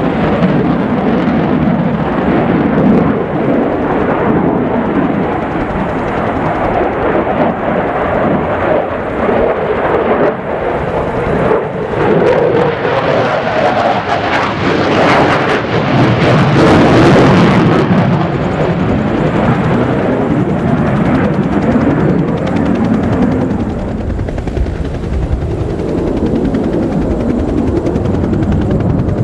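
F-15 Eagle fighter jet's twin turbofan engines heard in flight, a loud continuous roar that swells to its loudest and harshest, with crackling, about halfway through as the jet passes, then eases.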